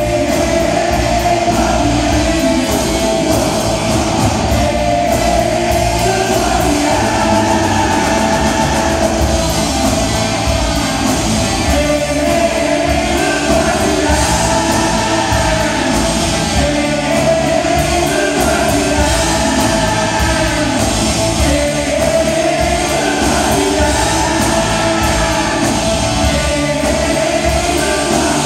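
Live rock band playing with a singer-guitarist's lead vocal over guitar and drums, loud and continuous, heard from the audience in a large hall.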